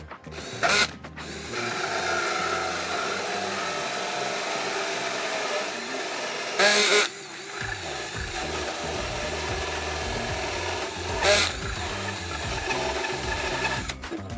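Cordless drill cutting a 3-inch hole with a hole saw, running steadily, with three short, louder bursts about a second in, halfway through and near the end.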